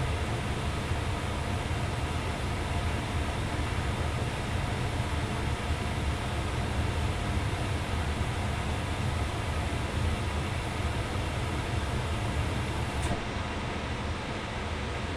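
2002 Ducane furnace running with a steady low rumble of blower and air noise. Near the end a single click sounds as the control board's diagnostic code changes, and the noise drops slightly after it.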